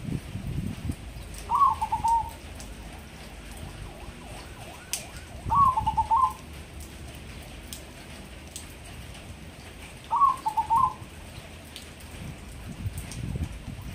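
Crossbred zebra dove (perkutut) cooing its song three times, about four seconds apart; each short phrase opens on a higher note and runs into a quick stutter of lower notes.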